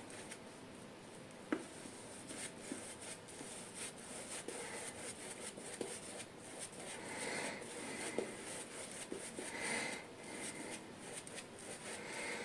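Soft swishing and rubbing of a 24 mm synthetic shaving brush working lather over the face, with small ticks and gentle swells. A single sharp click about a second and a half in.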